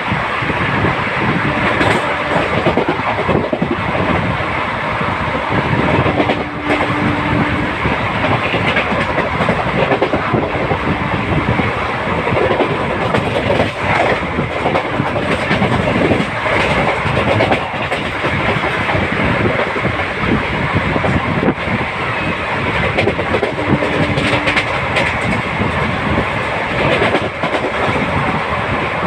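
Passenger train coach running at speed, heard from onboard: a steady rumble with the wheels clicking rapidly over the rail joints.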